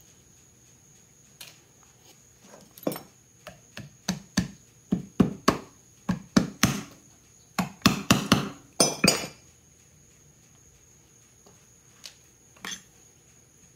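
A small ball-peen hammer tapping on the metal end housing of a brushed DC motor, seating the brush-holder tabs. There are about twenty sharp metallic taps, coming quickest in a run through the middle, then two more near the end.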